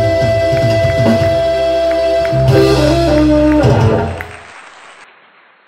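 Live reggae band playing, with long held notes over the drums and bass; the music fades out about four seconds in.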